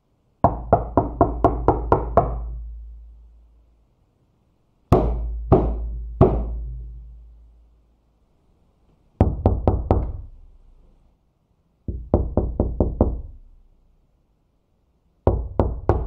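Knocking on a door in separate bursts: a quick run of about eight knocks, then three slow, heavy knocks, then runs of about five and six knocks, and three more knocks near the end. Each knock has a deep thud and a short ringing tail, with silence between the bursts.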